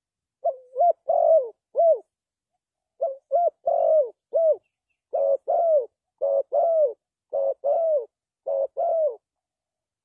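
Spotted dove cooing: about six short phrases of two to four low coos, each coo ending in a falling note, with brief pauses between phrases.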